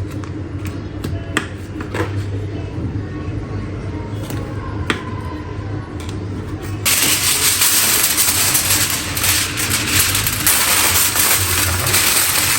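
Kitchen hum with a few light clinks of utensils, then about seven seconds in a loud frying sizzle starts suddenly: food searing in a hot pan with butter.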